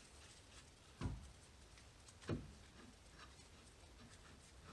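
Two dull knocks about a second apart from gloved hands working at a brake rotor and hub, over near silence.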